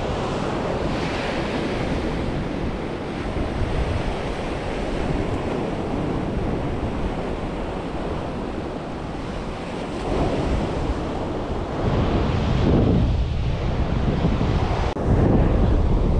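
Surf breaking on a beach, with wind buffeting the microphone. The low wind rumble gets heavier in the last few seconds, with a brief dip near the end.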